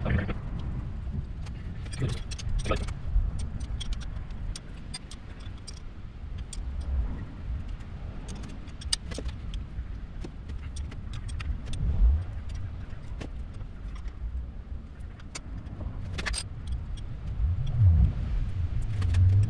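Hand tools and bolts clicking and clinking on metal while the gearbox cover of an Archdale horizontal mill is fitted and tightened, over a low rumble. There are a couple of heavier dull knocks, one about twelve seconds in and one near the end.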